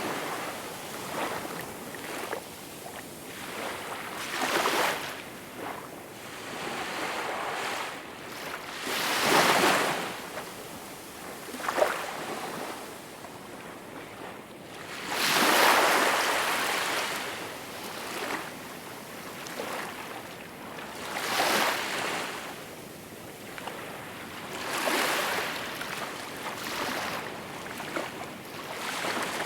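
Small waves washing onto a shore: a steady hiss of water with a softer surge every few seconds as each wave breaks and runs up.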